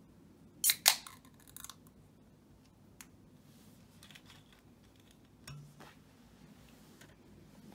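A drink can's ring-pull is cracked open, giving a sharp snap and a short fizz of escaping gas about a second in. Quieter handling and rustling noises follow.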